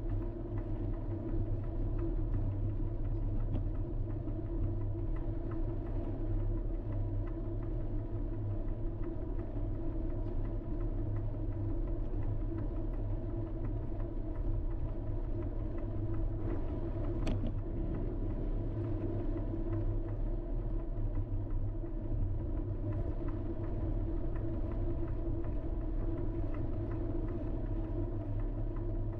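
A vehicle driving along at an even pace: a steady low rumble, with one sharp click about seventeen seconds in.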